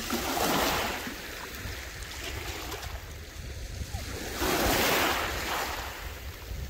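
Small waves washing in over a stony shore in shallow water: one wash at the start and another about four and a half seconds in, over a low wind rumble on the microphone.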